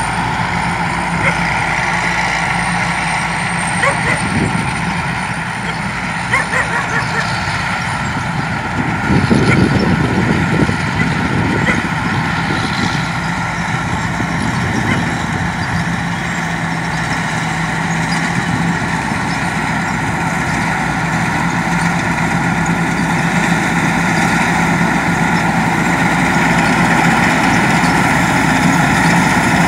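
Rice combine harvester's diesel engine and threshing machinery running steadily under load while cutting rice, briefly louder around nine seconds in and growing gradually louder toward the end as the machine comes closer.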